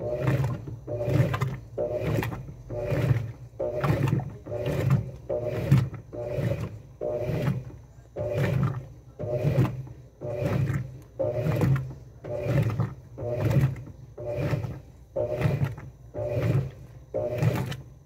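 Top-loading washing machine agitating a soapy load. The spiral auger agitator swishes the water back and forth, and each stroke brings a low growl from the motor and transmission, about one stroke a second.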